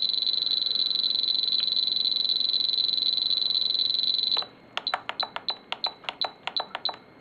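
Spektrum DX7 radio transmitter beeping as its roller is turned to step a swash-mix value down: the beeps run together into one steady high tone for about four seconds, then break into separate quick beeps, about five or six a second.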